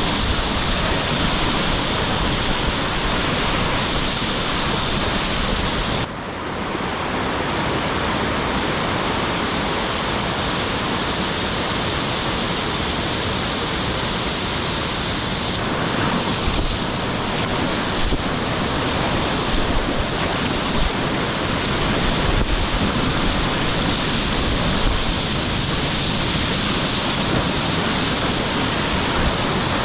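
Roaring whitewater of Colorado River rapids rushing past a kayak, with wind buffeting the camera microphone. The sound shifts abruptly about six seconds in and then runs on as a steady rush.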